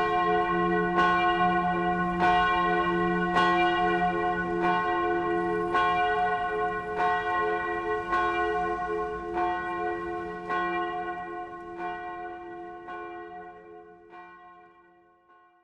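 Church bell ringing, struck steadily about once a second with each stroke ringing on into the next, fading out over the last few seconds.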